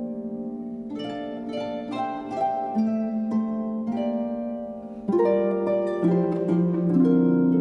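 Instrumental Irish music: a harp playing a tune in plucked notes that ring and fade. About five seconds in, the music grows louder and fuller.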